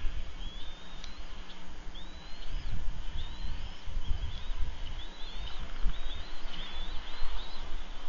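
Bird calls: a series of short, high chirps, each rising and hooking over, coming about once or twice a second and more often in the second half. Under them runs a steady low rumbling noise.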